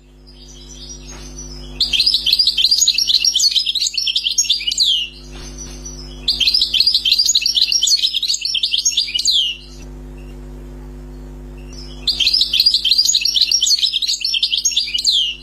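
European goldfinch singing: three bursts of rapid, high twittering song, each about three seconds long, with short pauses between them, over a steady low hum.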